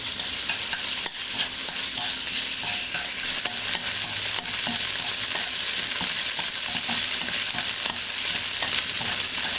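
Pork belly pieces sizzling in a hot nonstick wok as they are stirred with chopsticks: a steady frying hiss with frequent light clicks. The pork is being lightly seared to render out some of its fat.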